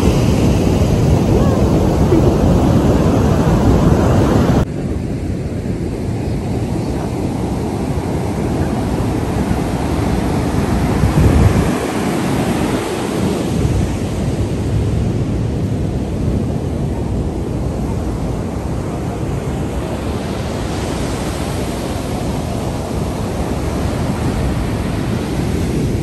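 Sea surf breaking and washing up the sand, with wind buffeting the microphone in low gusts. The sound drops suddenly to a quieter, steadier wash about four and a half seconds in.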